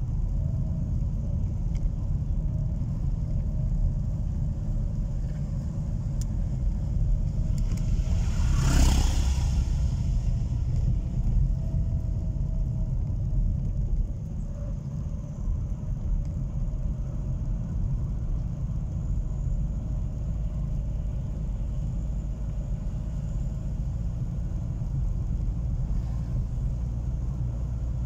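Car engine and tyre rumble heard from inside the cabin while driving slowly along a paved road, steady throughout, with a brief swell of rushing noise about nine seconds in.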